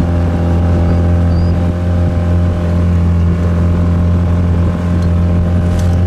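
Motorboat engine running at a steady speed, heard from on board: an even low hum that holds constant.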